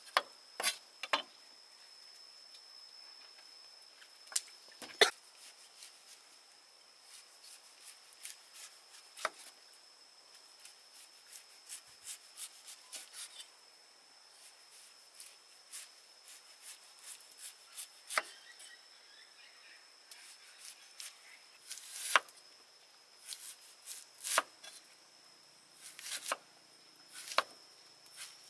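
Knife chopping on a wooden cutting board: irregular knocks and taps, some in quick runs, with a few louder chops.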